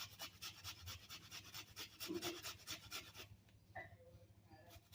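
Onion being grated by hand: quick, even rasping strokes, about five a second, that stop a little past three seconds in.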